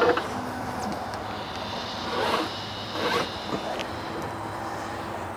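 Ratchet or cam-buckle tie-down strap being tightened on an e-bike: the webbing makes a few short rasping pulls through the buckle as the bike's front fork is drawn down.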